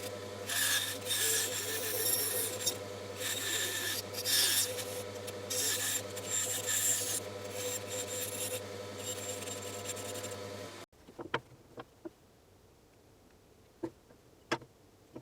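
Bandsaw running with a steady hum while its blade cuts wood in repeated surges of high hiss as the workpiece is fed and turned. The sound cuts off suddenly about eleven seconds in, leaving a low background with a few short clicks.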